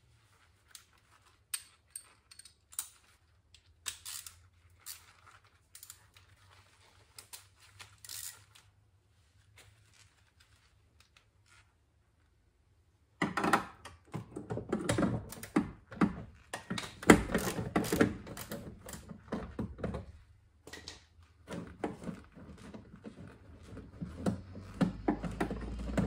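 Gloved hands and tools working inside a car's bare metal door shell to free the door handle: scattered clicks and knocks, then, after a short near-silent pause about halfway, louder and busier clattering and rattling of metal parts.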